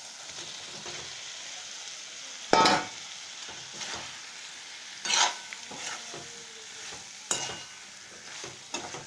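Potato and pointed gourd pieces sizzling in a pan of hot oil and spice paste, with a steady hiss. A spatula scrapes and knocks against the pan a few times as they are stirred.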